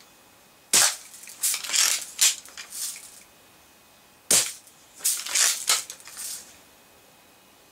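Two shots from a Daisy Red Ryder BB gun, about three and a half seconds apart, each a sharp crack followed by a short run of clicks and rattles.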